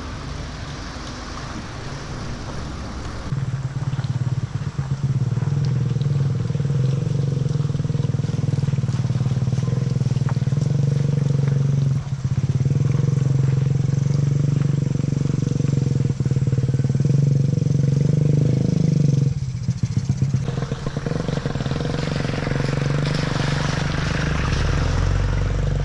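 Motorcycle engine running steadily while riding, getting louder about three seconds in. The throttle eases off briefly around twelve seconds and again around twenty seconds.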